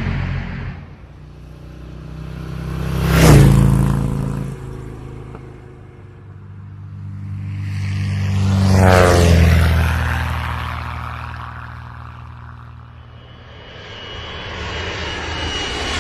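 Aircraft flying past twice, each pass swelling to a peak and fading: a quick one about three seconds in and a slower one around nine seconds with a clear drop in pitch as it goes by. Near the end another aircraft approaches with a rising high whine.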